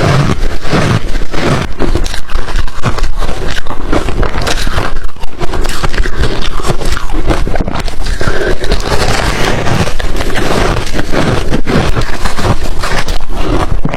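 Ice being crunched and chewed in the mouth, close to the microphone: a dense, unbroken run of loud cracking crunches.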